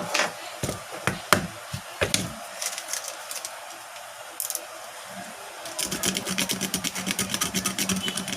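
A handful of sharp knocks and clicks, then about six seconds in a small engine starts running with a steady fast pulse and a low hum.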